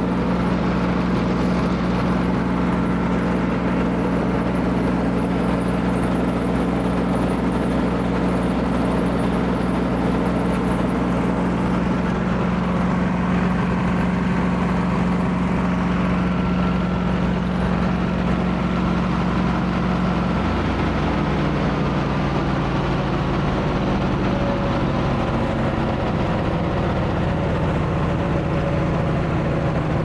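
Wood chipper's gasoline engine running steadily with a popping carburetor, the sign of a mixture that is too rich. About twenty seconds in its pitch drops and it settles at a lower speed.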